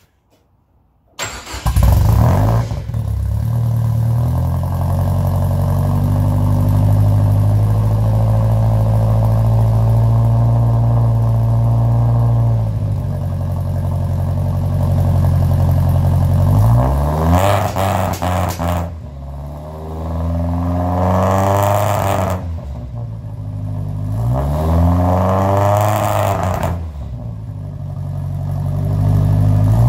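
A 1968 Datsun Roadster's four-cylinder engine, exhausting through a homemade muffler packed with stainless steel scrubbing pads, starts about a second in and idles steadily. From about halfway through it is revved several times, its pitch rising and falling with each blip. The engine is cold, and its carburettors spit and cough, which the owner takes as a sign they need tuning.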